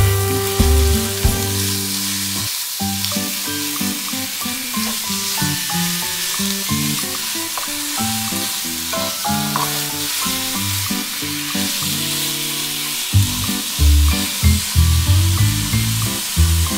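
Ground chicken and diced onion sizzling in a nonstick frying pan, stirred and broken up with a wooden spatula. Background music plays along with it.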